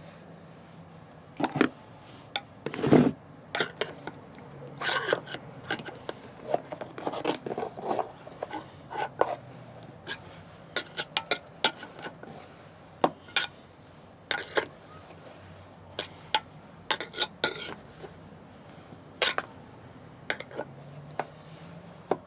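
Irregular metallic clicks, clinks and scrapes of small stainless steel light hooks being handled and twisted into wood, with a louder knock about three seconds in.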